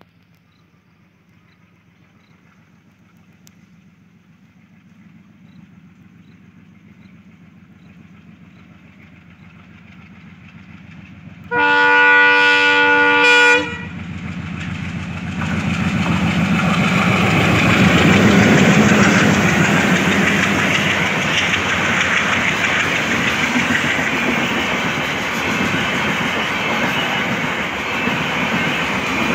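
Twin WDM-3D diesel locomotives approaching, their engine rumble slowly growing louder. About twelve seconds in they sound the horn for about two seconds, several tones at once. Then the locomotives and a long rake of LHB passenger coaches run past with a loud, steady rolling noise of wheels on rails.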